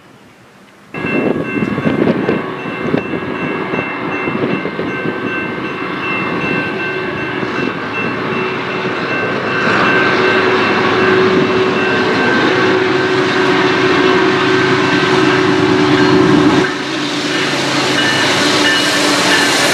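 After a quiet first second, a BNSF double-stack freight train approaches with its lead diesel locomotives sounding their air horn in a long, held multi-note chord. The locomotives' engines rumble louder as they pass close by.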